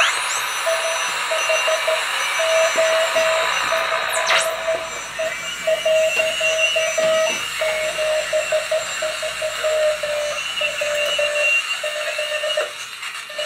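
Morse code on a replica WW2 Paraset spy radio: a single mid-pitched tone keyed on and off in dots and dashes over a steady hiss of band noise. Two brief sweeping whistles come near the start and about four seconds in.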